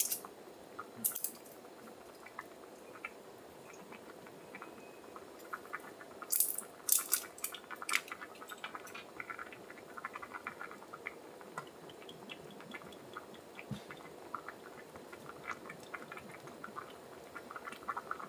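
Light clicks and clinks of tableware and food being handled during a meal, with a cluster of sharper clinks about six to eight seconds in, over a steady low background hum.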